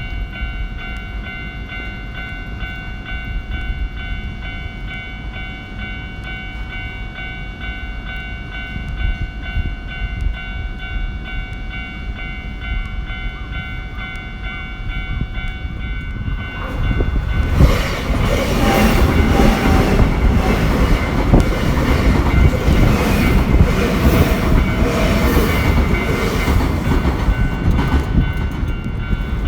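Japanese level-crossing warning bell ringing steadily. About sixteen seconds in, a Nankai Koya Line train starts running over the crossing: a loud rumble with wheels clacking over the rail joints, continuing to the end.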